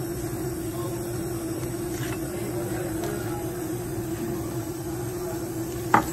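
Steady low machine hum, with one short knock near the end.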